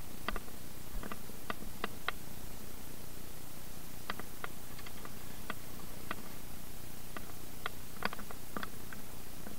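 Irregular light clicks and taps, scattered unevenly and clustered near the middle and toward the end, over a steady hiss.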